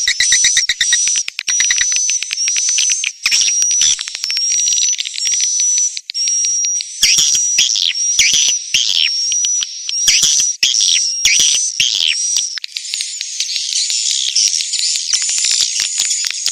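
Swiftlet lure-call recording: fast, dense clicking chatter of swiftlets with a short high chirp repeating about every two-thirds of a second. Between about 7 and 12 seconds in, a series of falling squeaks joins the chatter.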